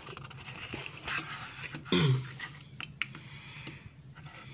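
Handling noise of a fingertip pulse oximeter being picked up and clipped onto a finger over a wooden tabletop: a scatter of small clicks and rubbing. A brief falling vocal grunt comes about two seconds in.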